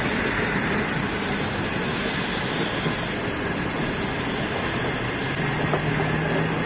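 Green passenger coaches of a conventional Chinese train rolling past: a steady rumble and hiss of wheels on rail. A low steady hum joins near the end.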